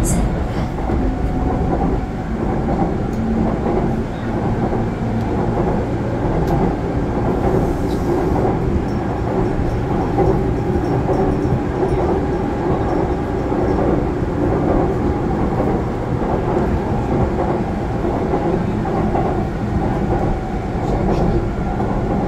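Seoul Metro Line 2 subway train running across a river bridge: a steady rumble of wheels on rails.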